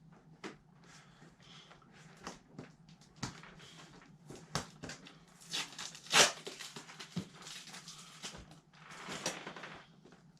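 Packing tape and a cardboard box being worked open: irregular clicks, crinkles and short scraping and tearing sounds, loudest about six seconds in and again just after nine seconds.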